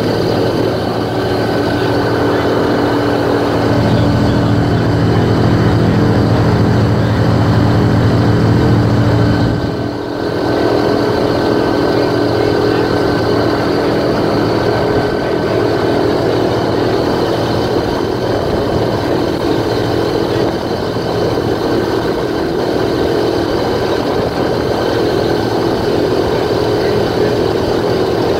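Airboat engine and propeller running steadily while under way. It grows louder for several seconds, dips briefly about ten seconds in, then runs on evenly.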